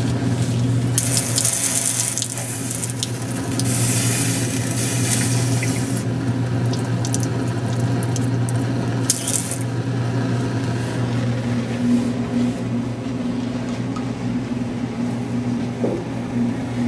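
Cold water running from a lab-sink faucet onto a penny held in metal tongs and splashing into the sink, quenching the penny after flame heating. The water is loudest for about five seconds starting a second in, with a short burst again later, over a steady low hum.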